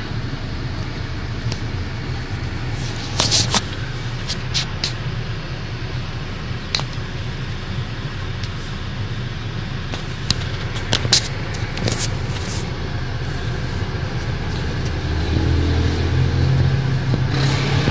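Car engine idling, heard from inside the cabin as a steady low hum, with a few short clicks and taps. The hum swells for a couple of seconds near the end.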